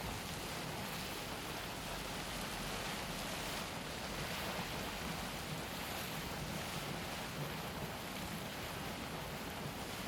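Boiling hot spring water bubbling and churning, making a steady, even rush with no separate events.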